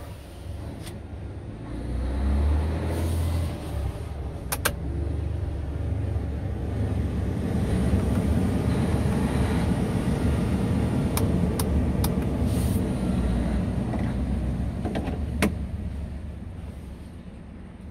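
Scania R truck cab with the diesel engine idling as a low rumble, while an airy rushing swells up, holds for several seconds and dies away, the sound of the cab's climate-control blower. A few sharp clicks of switches and trim come in between.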